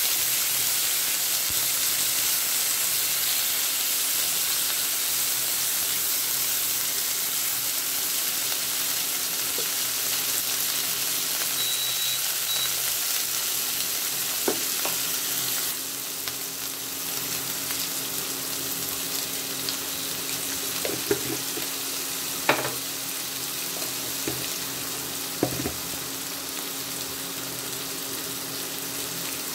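Boiled potato chunks sizzling in a nonstick frying pan as they are stirred and broken up with a silicone spatula, with a few sharp taps of the spatula on the pan in the second half.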